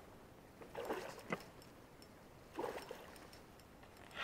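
Faint water sounds around a small boat, broken by three brief, sharper sounds about a second, a second and a half, and two and a half seconds in.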